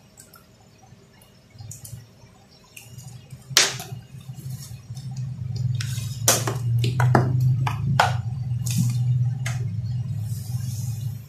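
Powered speaker system with a low mains hum that comes in about two seconds in, swells and stays loud, under sharp clicks and knocks of the unit being handled and opened. The technician blames the hum on the power supply: ripple from poor filtering leaking into the DC.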